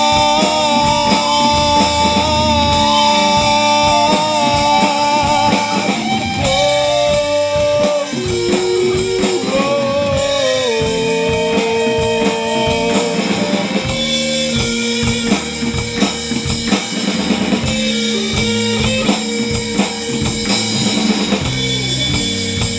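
Rock band playing an instrumental passage live: a guitar lead of long held notes that slide and bend from pitch to pitch, over a steady drum kit beat.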